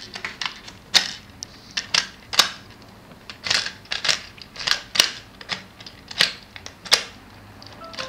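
Plastic clicking from a Peter Rabbit "Rabbit Grab" Happy Meal tabletop game as the red plungers at each end are pushed to snap the figures at the balls, sharp irregular clicks about two or three a second.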